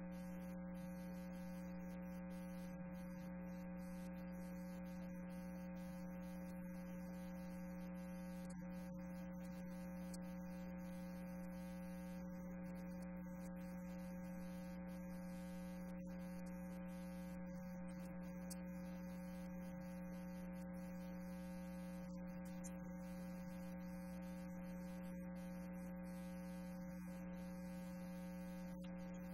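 Steady electrical mains hum: a constant low buzz with several fainter higher tones stacked above it, unchanging throughout.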